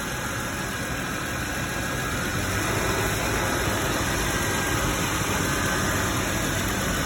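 Toyota Tacoma's 4.0-litre V6 engine idling steadily. The sound grows gradually louder over the first few seconds, with a faint high tone coming in partway through, as all the truck's electrical loads are switched on and the alternator is put under load.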